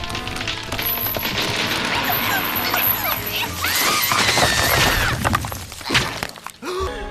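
Cartoon soundtrack: music mixed with crashing and shattering sound effects, bending pitched tones about halfway through, and a sharp hit near the end.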